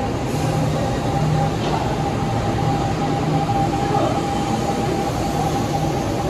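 Kintetsu 1250 series electric train pulling out past a station platform. Its Hitachi GTO-VVVF traction motors give a steady whine over the rumble of wheels on rail as the cars go by.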